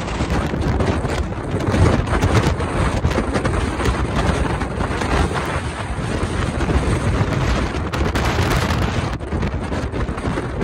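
Storm-force wind buffeting the microphone in irregular gusts, over the steady rushing noise of heavy surf breaking on rocks.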